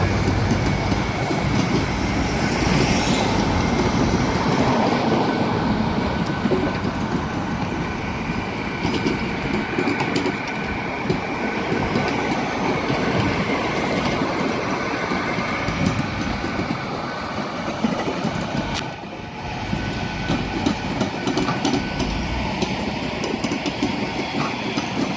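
Freight train wagons rolling past on the rails: a steady, continuous running noise of wheels on track, dipping briefly about three-quarters of the way through.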